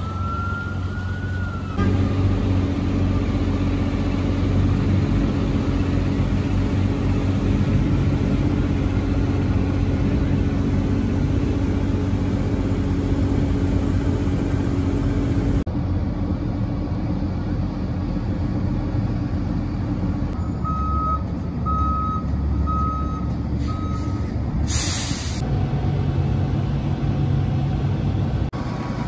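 Fire department vehicles' engines running with a steady low hum, opening with a brief siren-like glide in pitch. About twenty seconds in, a run of short, evenly spaced backup-alarm beeps, followed by a short sharp hiss of air brakes.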